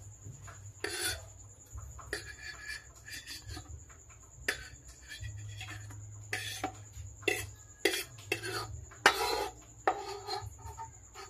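A fork scraping and tapping sliced cucumber and onion off a wooden chopping board into a bowl: irregular scrapes and clinks, with a steady low hum underneath.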